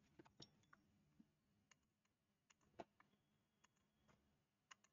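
Near silence with a few faint, scattered computer mouse clicks, the clearest a little before the middle.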